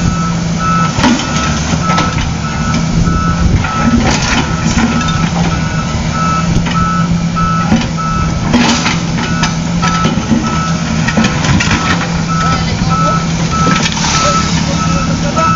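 Construction vehicle's reversing alarm beeping steadily at one pitch over its running diesel engine, with scattered metallic clanks.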